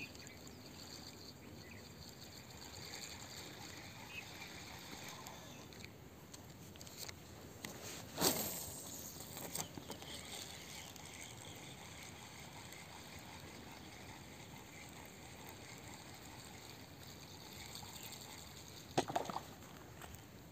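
Quiet riverside ambience with faint insect chirring. A sudden sharp sound about eight seconds in, and a short splash on the water near the end.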